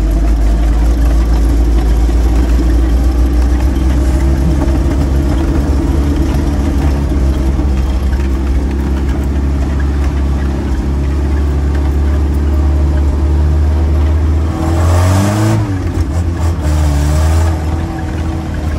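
Land Rover Series 3's 2.25-litre four-cylinder petrol engine running steadily under load, heard from inside the cab. About fifteen seconds in, the revs dip and climb again.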